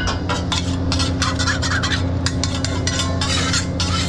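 Metal spatula scraping and clacking against a steel teppanyaki griddle in quick, irregular strokes as it works a pile of fried rice, over a steady low hum.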